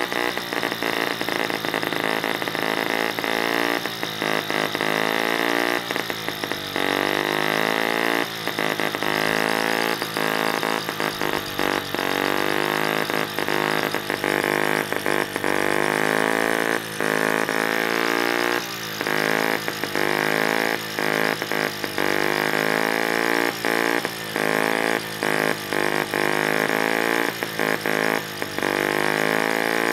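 Small model split-cycle two-stroke engine running on its own with a fast, continuous buzz. Its speed drifts up and down, and the sound breaks off briefly many times.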